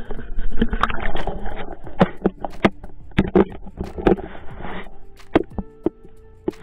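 Water splashing and sloshing, with a string of sharp knocks and bumps, as a largemouth bass is handled in shallow water against a waterproof camera that dips below the surface, so the sound is muffled.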